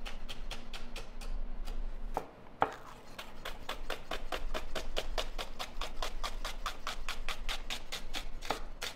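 Chef's knife slicing a halved onion into thin strips on a wooden cutting board: quick, even knife strikes on the wood, about six a second, broken by a short pause and one louder knock a little over two seconds in.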